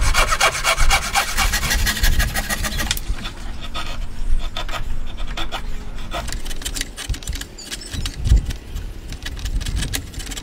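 Hand tools working wood. First comes a fast run of rasping back-and-forth strokes as a file or thin saw is drawn along the edge of a mitred corner. This is followed by a chisel paring and splitting the wood: irregular cracks and scrapes with a couple of dull knocks.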